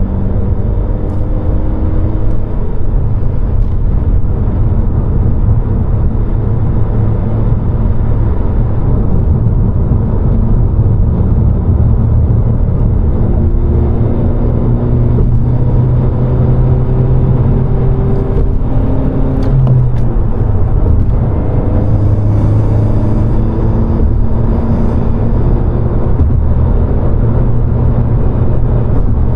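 2020 Honda Civic Si's turbocharged four-cylinder engine and road noise while driving, the engine note rising and falling several times as it pulls through the gears.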